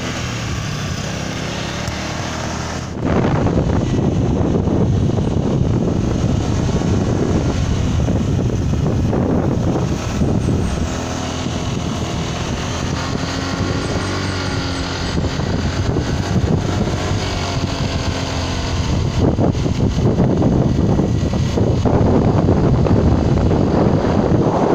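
Motorcycle engine running under way, its note rising and falling with the throttle, over wind noise on the microphone. It gets louder about three seconds in.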